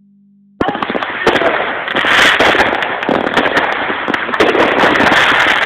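Fireworks display: a dense, continuous run of rapid pops and crackles from comets and sparkling effects going up, starting suddenly about half a second in.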